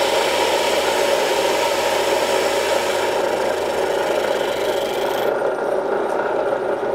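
Drill press running while a water-fed sintered diamond core drill grinds into an aluminum oxide dressing stick, a steady gritty rasp over the motor hum. The grinding strips the glazed glass and a layer of metal off the drill tip to expose fresh diamonds. The rasp stops sharply about five seconds in, leaving the drill press running.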